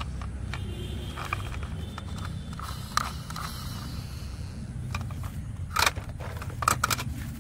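Handling of a small plastic toy VW bus, then light plastic knocks and clacks as it is put into a plastic basket among other toy vehicles, the two clearest near the end, over a steady low rumble.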